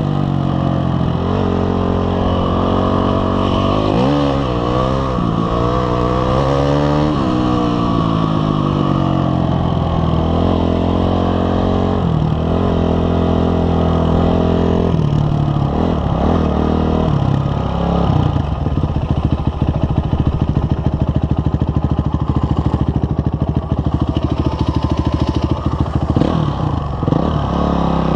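Honda CRF250X dirt bike's single-cylinder four-stroke engine under way, its pitch climbing and dropping again and again as the rider works the throttle and shifts gears. In the last third the engine note turns choppy and uneven.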